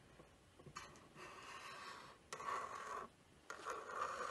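Marker pen drawing long lines on paper over a clipboard: one long stroke from about a second in, then a second long stroke starting shortly after it and running on past the end.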